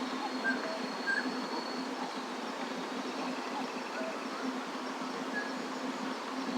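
Outdoor ambience: a thin high insect trill and short, scattered bird chirps over a constant low hum and hiss.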